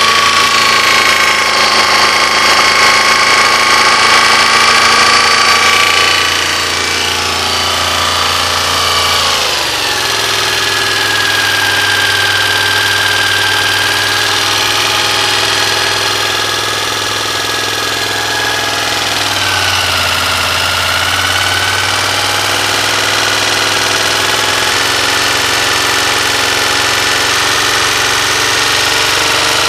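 Honda VFR400 NC21's V4 engine running at fast idle, the revs falling back to a lower steady speed about nine seconds in and wavering again near twenty seconds. The owner says the engine has a weird knock.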